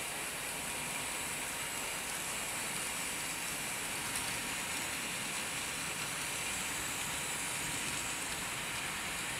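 Bachmann OO gauge model locomotives (Bill and Ben) running on the track hauling a long rake of wagons: a steady hissing whir of motors and wheels on rail, with one small click about four seconds in.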